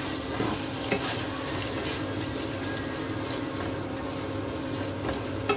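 Chilli sambal with squid and petai simmering and sizzling in a nonstick wok while a spatula stirs and scrapes through it, with a sharp click of the spatula about a second in and again near the end. A steady hum runs underneath.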